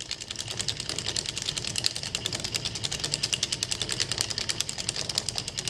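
Rapid, even run of clicks, about ten a second, from the sound effect laid under an animated logo outro.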